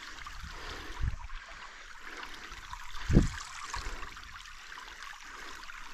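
Creek water trickling steadily over stones, with two brief dull thumps about one and three seconds in.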